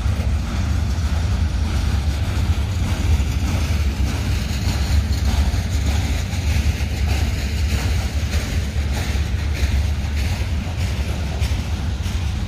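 Covered grain hopper cars of a long freight train rolling past on the rails: a steady low rumble with faint repeated wheel clicks.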